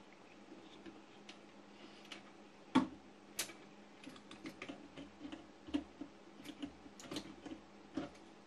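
Irregular small clicks and knocks of hands fitting an amplifier module back into an autochanger record player's cabinet, with one louder knock about three seconds in and a run of lighter clicks after it.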